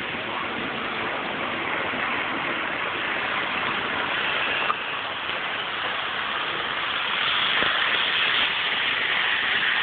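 Kato model bullet train running on its track, a steady rushing whir of motor and wheels that grows a little louder toward the end, with a sharp click about halfway.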